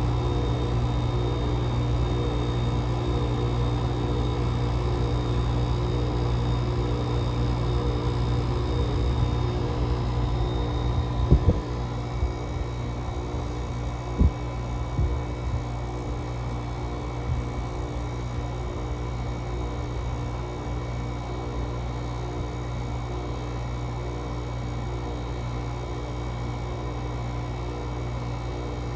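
GE AWS05LSK1 5050 BTU window air conditioner running steadily, its Samsung rotary compressor humming under the fan, run at 15°F, far below the temperature these units are meant to operate in. A few sharp knocks come about eleven seconds in, after which the unit runs slightly quieter and a faint high whine drops out; a few lighter clicks follow.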